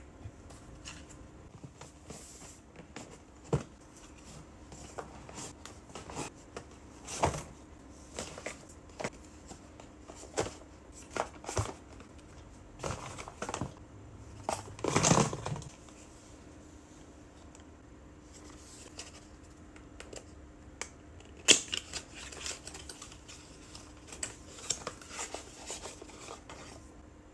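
Hands handling cosmetics packaging: plastic lip-gloss tubes and small cardboard skincare boxes being picked up, set down and opened, giving scattered taps, clicks and rustles. A longer crinkly rustle comes about halfway through, and a sharp click a few seconds later.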